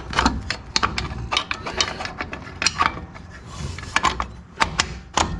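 Metal clicks and clinks of rear drum brake hardware on a Dodge Dakota, the self-adjuster lever and linkage, being worked into place by hand against the brake shoe. The clicks are sharp and irregular and come many times.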